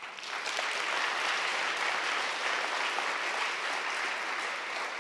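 Audience applauding, swelling quickly at the start and easing off a little toward the end.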